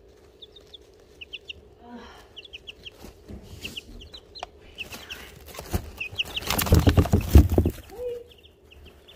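Two-and-a-half-week-old chicks peeping in short high chirps, often in pairs. About six and a half seconds in comes a loud second of scuffling and knocking as the chicks knock over the phone that is filming on the floor of the pen.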